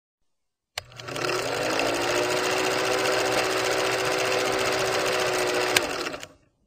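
Film projector running as a sound effect: a steady mechanical whir and clatter that starts with a click about a second in, its hum rising slightly as it comes up to speed. It cuts off shortly before the end.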